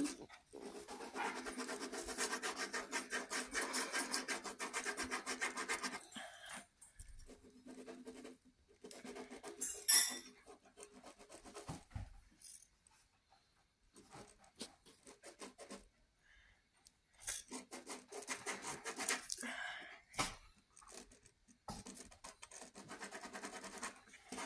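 Felt-tip Sharpie marker scribbling and shading on a sheet of paper: runs of quick back-and-forth strokes, the longest in the first six seconds, with pauses between them and a brief louder scratch about ten seconds in.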